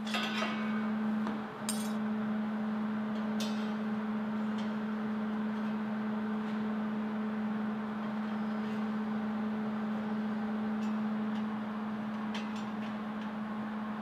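Light metallic clinks and taps of plasma-cut steel lantern parts being set into a steel jig on a welding table, a few scattered clicks, over a steady low hum.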